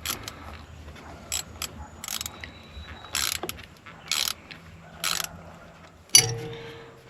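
A ratchet wrench on a 10 mm battery terminal nut, ratcheting in short strokes about once a second as the terminal clamp is tightened, then a sharp metallic clink near the end.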